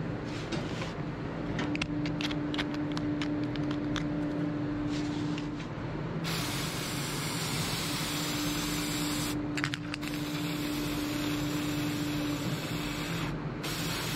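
Aerosol wound spray hissing onto a cow's claw in long bursts. The first starts suddenly about six seconds in, with short breaks near ten seconds and near the end. Before it there is a steady low hum and a run of light clicks.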